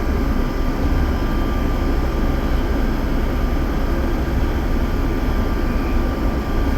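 Electric narrow-gauge train of the Visp–Zermatt line running, heard from inside the carriage: a steady low rumble and rolling noise with a faint steady whine.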